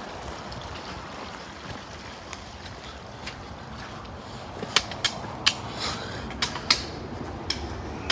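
A hiker's sharp taps and steps echoing inside a drainage tunnel under a highway, over a steady rushing background. The taps come as a run of about eight clicks starting a little before halfway through.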